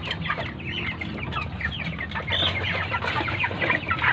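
A flock of 45-day-old broiler chickens calling all at once: many short, overlapping high cheeps, with a low steady hum underneath.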